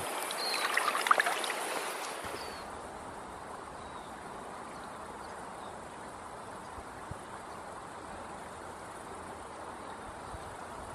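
Water splashing and trickling around hands holding a brown trout in shallow river water, with a few short high chirps. After about two seconds this gives way to the steady, even rush of a shallow stream.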